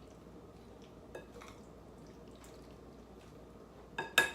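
A quiet room with a few faint clicks, then two sharp clinks with a short ring near the end, hard objects knocking together.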